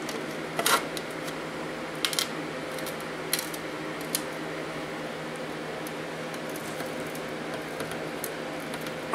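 A few light metal clicks and taps as a clamp is slid onto the steel bar of a homemade bandsaw blade sharpener and tightened down, over a steady background hum. The clicks come in the first half, the sharpest about a second in.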